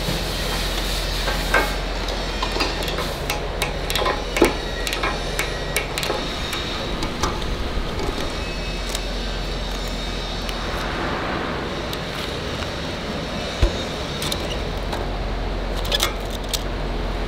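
Hand-operated ratchet strap tensioner clicking irregularly as woven strapping is pulled tight around a stack of cast iron manhole covers, over a steady factory machinery hum.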